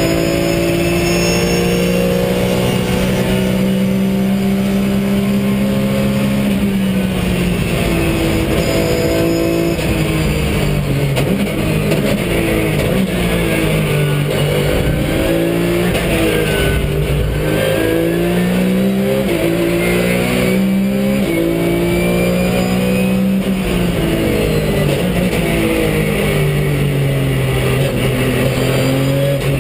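Porsche 911 GT3 Cup's flat-six racing engine heard from inside the cockpit at racing speed. The engine holds a steady high pitch for the first several seconds, then climbs and falls again and again as the car is driven through the gears and corners.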